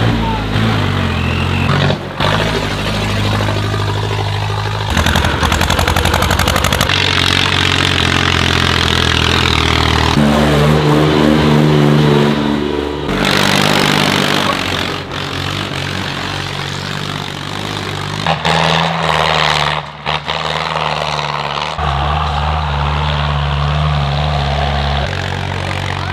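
Tractor engines running hard and revving under load, heard as a string of short clips whose engine note changes abruptly every few seconds.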